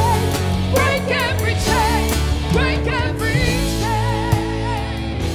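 Live worship band: women's voices singing with vibrato over bass guitar and acoustic guitar.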